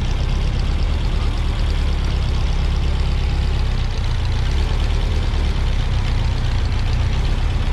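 A car engine running steadily, a low, even engine note with no revving.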